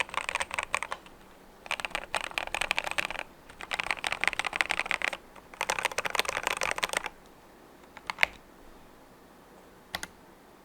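Epomaker TH80 mechanical keyboard being typed on in four fast bursts of rapid keystrokes, then a few single key presses near the end. The keyboard is modded for a damped sound: lubed stabilizers, and a case stuffed with medical wrap and lined with gauze.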